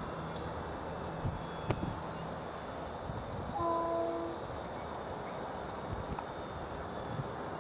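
Gusty wind on the microphone with the faint drone of an E-flite PT-19 electric park-flyer's motor and propeller overhead. About three and a half seconds in, a horn sounds once, a steady tone lasting under a second.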